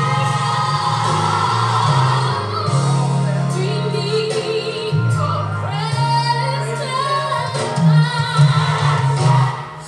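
Gospel music with female lead vocals and choir singing over a steady bass line.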